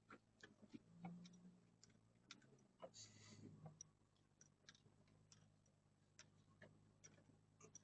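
Near silence: faint, irregularly spaced clicks over a low steady hum.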